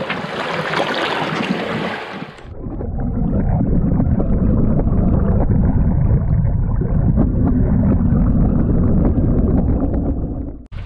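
Water rushing against a camera held underwater beneath a sailing yacht's hull: a hissing rush for about two seconds, then a steady, muffled low rumble of moving water that cuts off near the end.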